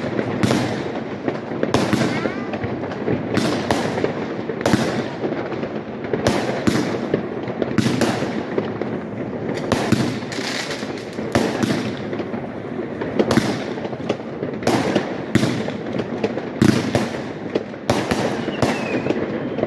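Aerial consumer fireworks bursting in quick succession: sharp bangs about once a second over a continuous din of crackling and further explosions.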